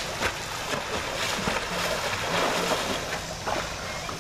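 Pool water churning and splashing from a person's swimming strokes.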